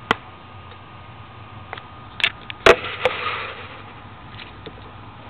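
A few sharp clicks and knocks, the loudest about two and a half seconds in and followed by a brief rustle, over a steady electrical hum.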